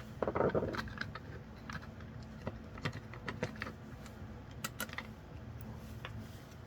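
Light, irregular clicks and taps of a small screwdriver and screws as the screws are taken out of the back of a REV Pneumatic Hub's plastic case, with a short scraping rustle about a quarter second in.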